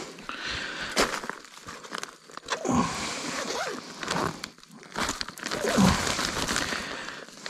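Soft insulated cooler bag being opened and handled among dry leaf litter: irregular rustling, crinkling and crunching, with a sharp click about a second in.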